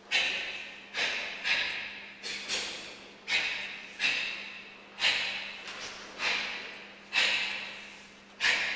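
A karateka's sharp, forceful exhalations, one with each technique of a kata, about a dozen at uneven spacing. Each starts suddenly and hisses away over about half a second in the hall.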